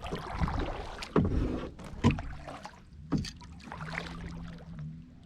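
Kayak on the water: water sloshing and three sharp knocks against the hull, about a second apart.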